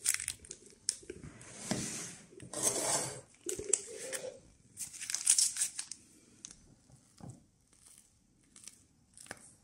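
Rustling and crinkling of a filled piping bag being handled, twisted and squeezed, in several short bursts that give way to faint scattered clicks in the last few seconds.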